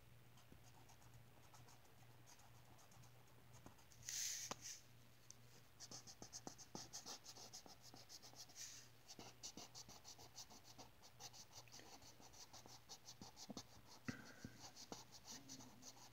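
Marker tip scratching on a paper page in quick back-and-forth colouring strokes, faint. There is a brief louder scribble about four seconds in, then a steady run of several strokes a second from about six seconds in.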